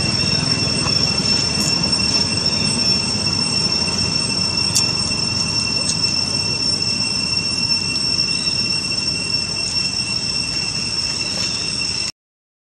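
Steady, high-pitched cicada drone over a low background rumble, cutting off suddenly near the end.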